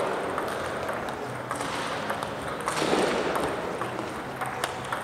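Table tennis ball clicking off bats and table during a rally, in irregular sharp ticks. A brief louder rush of noise comes just before three seconds in.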